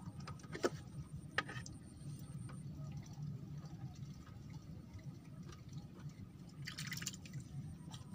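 Water lapping and dripping against a floating bamboo raft, with two sharp clicks about a second in and a brief rustle near the end.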